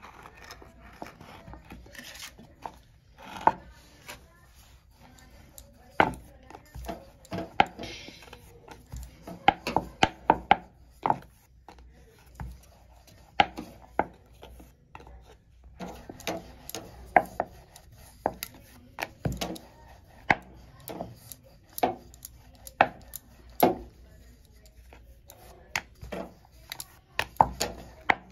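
Wooden rolling pin rolling out dough on a round wooden board (chakla), with irregular sharp wooden clacks and knocks as the pin is pushed and repositioned, and some soft rubbing.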